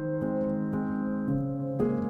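Background music: piano or keyboard chords changing about every half second.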